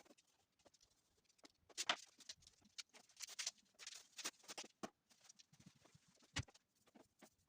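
Faint, irregular scratchy brushing strokes and light taps, as of a paintbrush laying paint onto door frames, with a louder stroke about two seconds in and a dull knock a little after six seconds.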